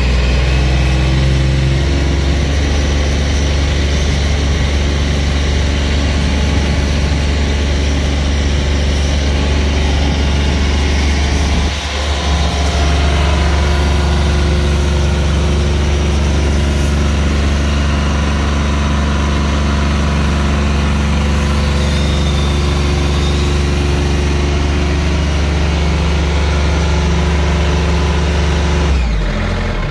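The 916 cc three-cylinder diesel pump engine on a fire brush truck running steadily at raised speed, driving a Hale high-pressure water pump to build pump pressure.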